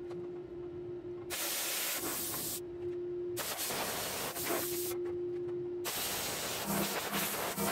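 Arc welding on sheet steel: the welding arc hisses and crackles in three runs of about a second and a half each, with a steady hum in the pauses between them.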